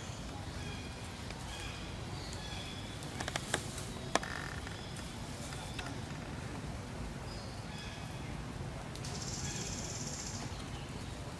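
Woodland ambience with scattered short, high chirps. A few sharp clicks come three to four seconds in, and a high hiss lasts about a second and a half near the end.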